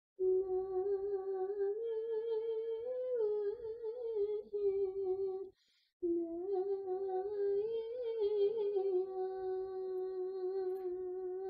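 A single voice humming a slow, wordless melody in frequency-singing style, mostly holding one note with short rises and wavering turns. It comes in two long phrases, with a brief break for breath about five and a half seconds in.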